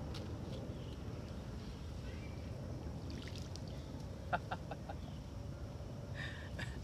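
Steady low outdoor rumble, like wind, with a bird calling a quick run of about five short notes about four seconds in and a brief higher call near the end.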